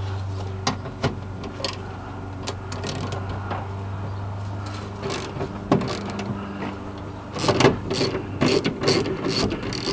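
Scattered metallic clicks and knocks of tools and parts being worked on a van's rear door handle and license plate light assembly during disassembly, busier near the end, over a steady low hum.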